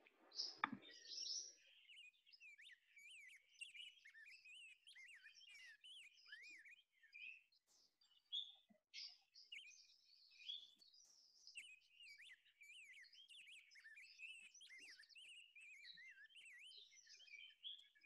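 Recorded song of a migratory songbird played back faintly: a long, rambling run of rapid, varied chirps and warbles, like a whole conversation, with a brief pause partway through.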